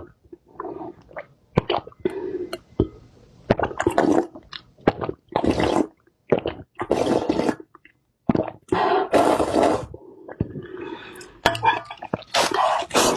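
Close-miked eating: wet chewing and slurping mouth sounds in irregular short bursts, with sharp smacking clicks between them.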